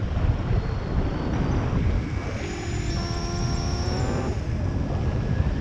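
Wind rushing over the camera microphone of a hang glider in flight, a steady low buffeting roar. About halfway through, a steady pitched hum with a faint high whistle joins for about two seconds.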